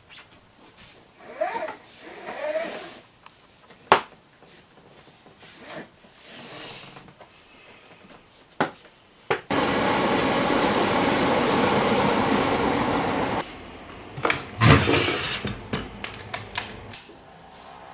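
Kitchen food-preparation sounds: scattered clicks and knocks, then a small appliance motor running steadily for about four seconds in the middle, followed by a burst of clattering.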